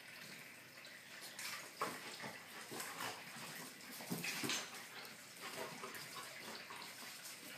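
An Australian shepherd puppy and a chihuahua play-fighting: irregular scuffling noises with scattered short clicks and a few brief louder bursts.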